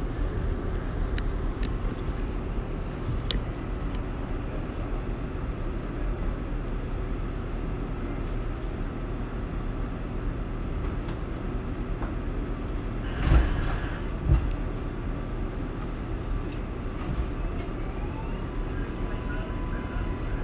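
R188 subway train with Bombardier MITRAC propulsion running: a steady low rumble of wheels and car noise, with a few light clicks early on and two sharp clanks about two-thirds of the way through. Near the end a faint whine rises and then holds steady.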